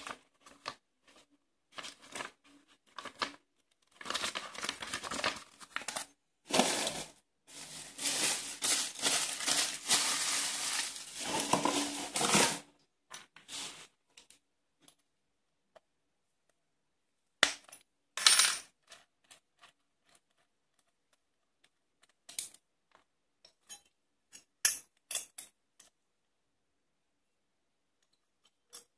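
Steel and carbide oscillating multi-tool blades clinking and clattering against each other and the table as they are picked up and handled. There is a long stretch of rustling in the first half, then scattered sharp metallic clinks.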